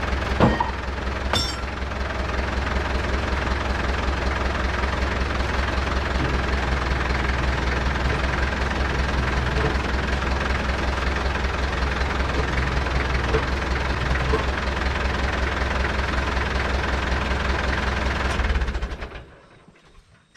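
Tractor engine running steadily, then switched off about two seconds before the end and dying away quickly. A couple of light clicks sound early on.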